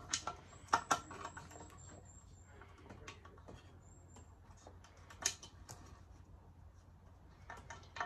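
Small plastic and metal clicks and knocks of a toggle switch being handled and pushed up into a freshly drilled hole in a coffee grinder's housing. There is a cluster of clicks in the first second, a sharper knock about five seconds in, and a few more near the end.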